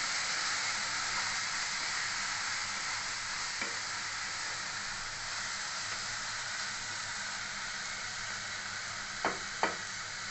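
Chopped onions and ginger-garlic paste sizzling in oil in a non-stick kadhai while being stirred and sautéed with a wooden spatula. A light knock comes about three and a half seconds in, and two sharper knocks close together near the end, as the spatula hits the pan.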